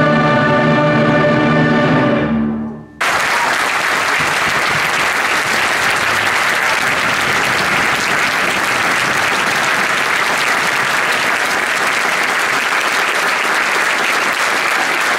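A massed choir and orchestra hold the final chord, which dies away about two to three seconds in. The audience then breaks into applause all at once and keeps clapping steadily.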